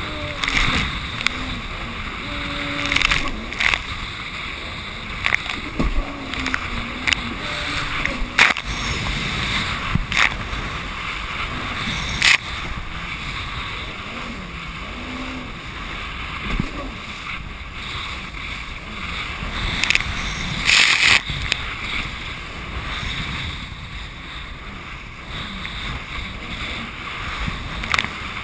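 Yamaha jet ski running through choppy sea: a steady rush of engine, water and wind, broken by irregular sharp hits as the hull slaps the waves and spray strikes, the hits coming every second or two and loudest about two-thirds of the way through.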